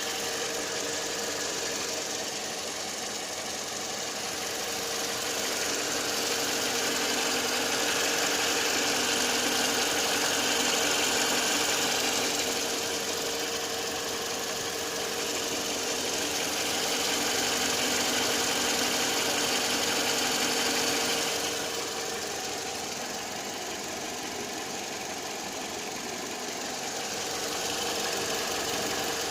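Toyota Corolla E150's 1ZR-FE 1.6-litre four-cylinder petrol engine idling with an unexplained knock. The knock comes in about seven seconds in and is clearest from about 13 to 21 seconds. The idle gets louder and then drops back about 21 seconds in.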